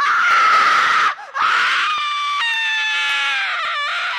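A person screaming: a long, high-pitched cry, broken off briefly about a second in, then a second long cry that falls slightly in pitch.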